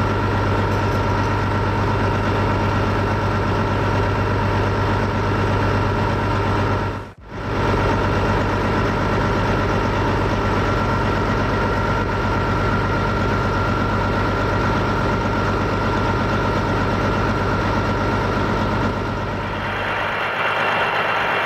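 Detroit Diesel Series 60 inline-six diesel engine idling steadily and loudly, running to build the oil pressure that feeds the oil-sampling port. The sound drops out for a moment about seven seconds in and shifts in tone near the end.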